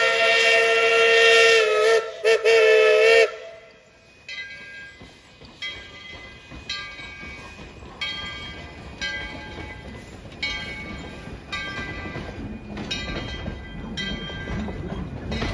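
4-6-0 steam locomotive No. 12's steam whistle blowing a long chord, with two brief breaks about two seconds in, cutting off a little over three seconds in. Then a bell rings about once a second as the locomotive passes, over the low rumble of the passenger coaches rolling by, growing toward the end.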